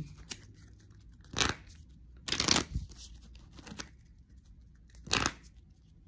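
Tarot cards being shuffled and handled in three short bursts: one about a second and a half in, a longer one around two and a half seconds, and one a little after five seconds.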